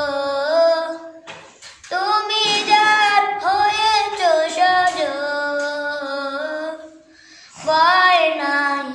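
A boy singing a Bengali Islamic song unaccompanied, holding long wavering notes. He pauses for breath about a second in and again near the end.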